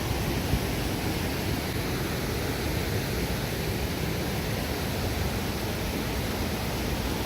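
Steady rushing of a waterfall on a river running high after rain.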